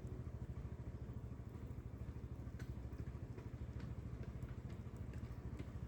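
A low, steady, rhythmic engine throb, like a motor idling, with a few faint clicks over it.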